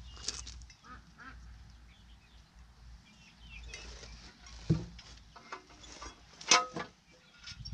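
Farmyard poultry calling in a few short, nasal calls, the loudest about four and a half and six and a half seconds in, over light scuffing and clicking close by.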